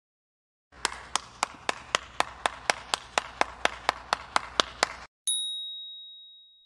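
A run of sharp, evenly spaced clicks, about four a second for some four seconds, then a single bright ding that rings out and fades.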